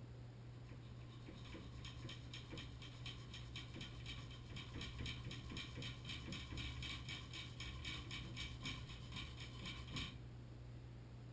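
Hand tool working metal inside a Moen Posi-Temp shower valve body: quick, even scraping strokes, about four or five a second, which stop abruptly near the end.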